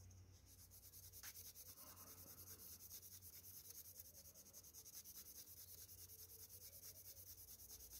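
Faint, quick back-and-forth rubbing of a cloth polishing Brasso onto an old Okapi knife's rusty steel blade, working off the surface rust and patina.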